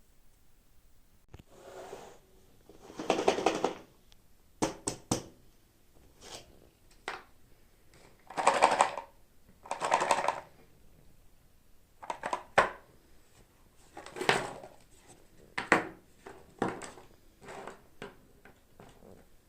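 Toy packaging being handled and opened: irregular bursts of crinkling and rustling, with sharp clicks and taps in between.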